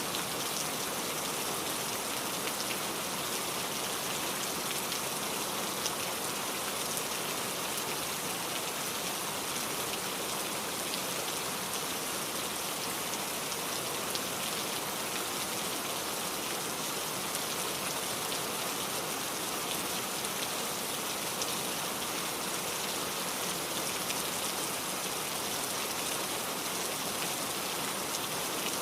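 Heavy rain falling steadily: a dense, even hiss of drops with scattered sharper drop hits.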